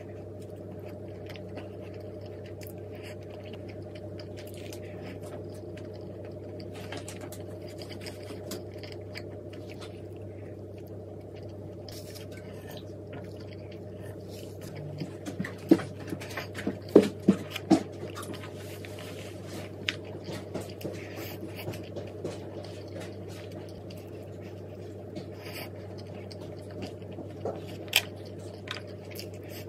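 Steady low hum of a small room, with scattered light clicks and taps of handling, and a quick run of sharper clinks about halfway through, then one more near the end.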